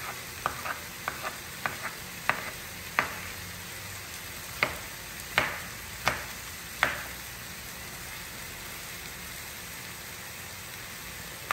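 Kitchen knife chopping bell pepper on a plastic cutting board: about a dozen uneven knocks that stop about seven seconds in. Under them, the steady sizzle of diced meat browning in olive oil in a pan.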